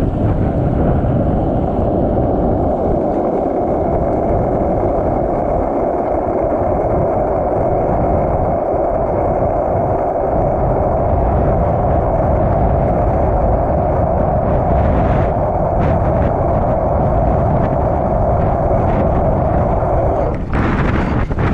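Skateboard wheels rolling fast down a long, smooth asphalt hill: a steady, loud rolling noise with wind rumbling on the microphone, cutting off suddenly near the end as the rider jumps off the board.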